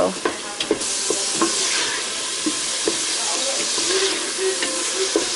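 Meat and well-browned onions frying in an oiled pan, sizzling steadily, with the repeated clicks and scrapes of a utensil stirring them against the pan.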